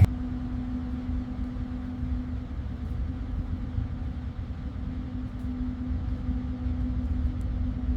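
Vehicle engine idling: a steady low rumble with a constant hum.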